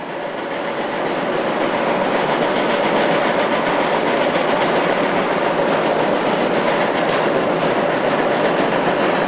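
Steam rotary snowplow train working the line: a dense, steady rush of noise with a faint held tone underneath, swelling in over the first couple of seconds.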